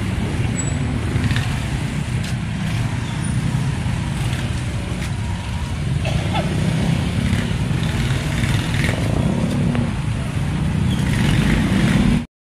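A motor vehicle engine running steadily with a low rumble, which cuts off suddenly near the end.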